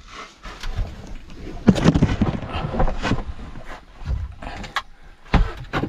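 Irregular knocks and thuds with rustling, as someone moves about on chipboard loft boarding, with footfalls or knees on the hollow boards.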